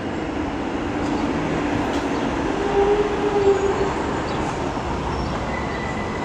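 R-143 subway train approaching on an elevated track, a steady rumble of wheels on rail that swells toward a peak about halfway through. A low whine rises out of the rumble in the middle, and a faint high tone enters near the end.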